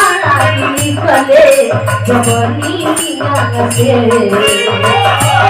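Live devotional bhajan music: a wavering melody line over shaker-type rattle percussion and a steady low note that pulses on and off.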